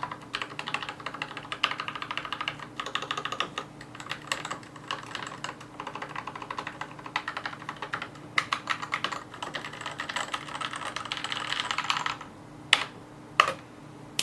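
Fast typing on a stock Akko 3098 mechanical keyboard with Gateron Cap yellow linear switches and SP DCS keycaps. The keystrokes come in dense runs, then stop about two seconds before the end, and two single sharper key clacks follow.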